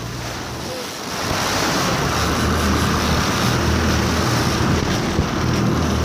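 Water rushing and splashing along the hull of a moving boat, with wind buffeting the microphone over a low, steady motor hum. It grows louder about a second in.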